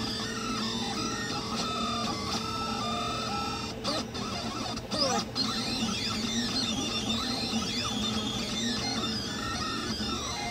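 Delta 3D printer printing, its stepper motors whining in tones that rise and fall as the print head moves. Under them runs the steady hum of the hotend's small cooling fan.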